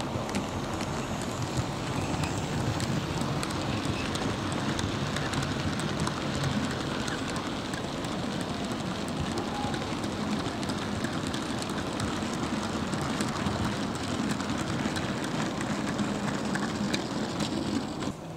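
OO gauge model coal train running past: the small model locomotive's motor and the coal wagons' metal wheels rattling and clicking steadily along the track. The sound drops off suddenly near the end.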